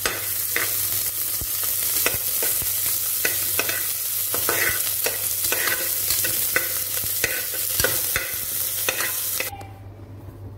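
Chopped onions sizzling in ghee in a pressure cooker, stirred with a steel spoon that clicks and scrapes against the pot. The sizzling cuts off shortly before the end, leaving a faint hum.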